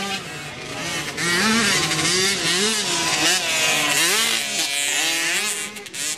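A 50cc youth motocross bike engine revving up and down over and over as the rider works the throttle, getting louder about a second in.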